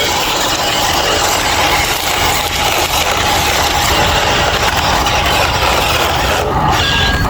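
Radio-controlled construction machinery running, a steady mechanical noise of its motors and gearing.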